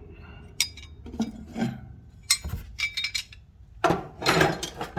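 Small metal hand tools clinking and knocking against each other and a hard surface as they are handled and set down: a string of sharp clinks, with a louder, longer spell of rattling and handling about four seconds in.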